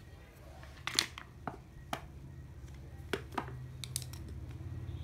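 Irregular sharp clicks and light knocks of a spinning fishing reel being handled, about ten in all, the loudest about a second in, over a steady low hum.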